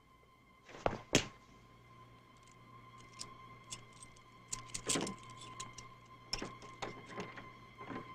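Foley props being worked by hand: two loud sharp knocks about a second in, then a run of clicks, rattles and knocks, busiest around the middle.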